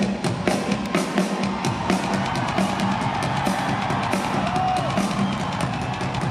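Rock drum kit played live, with quick kick, snare and cymbal hits, heard from the audience in a large arena.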